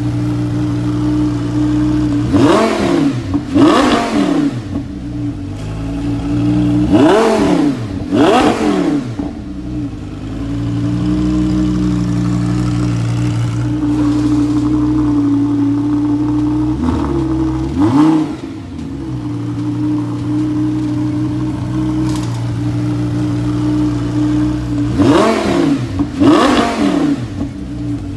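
Audi R8's 5.2-litre V10 through a freshly installed Rev9 titanium exhaust, idling steadily and blipped by the throttle. Four pairs of quick revs each rise and drop back to idle, the third pair softer than the rest.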